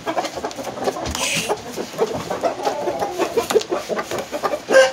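Rooster clucking in short low calls among scattered sharp clicks, then breaking into a loud crow near the end.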